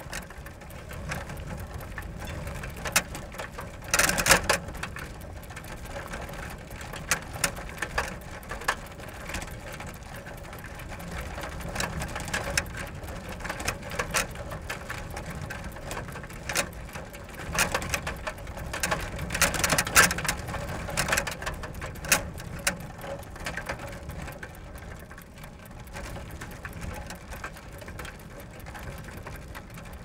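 Bicycles ridden fast: a continuous low tyre rumble under a rapid rattle and clicking of chain and mechanism, with louder bursts of clatter about 4 and 20 seconds in.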